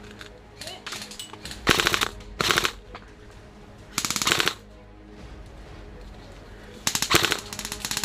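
Airsoft guns firing rapid full-auto bursts: two short bursts about two seconds in, another at four seconds, and a longer, more ragged run of fire near the end.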